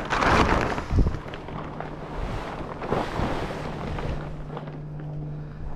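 Black polyethylene tarp crinkling and rustling as it is carried and dropped onto a sand pad, with a thump about a second in. A steady low hum comes in underneath.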